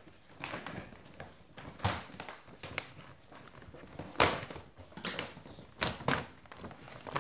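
Paper gift bag rustling and crinkling as a hand rummages inside it and pulls clothing out: a few separate sharp rustles, the loudest about four seconds in.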